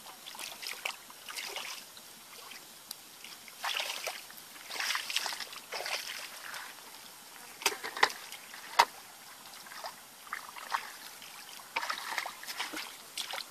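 Hands groping and splashing in shallow muddy water in irregular bursts, with two sharp clicks a little past halfway.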